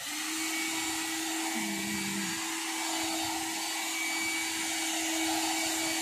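Handheld pet grooming hair dryer switched on, starting suddenly and then running steadily: an even rush of air with a steady low hum from its motor.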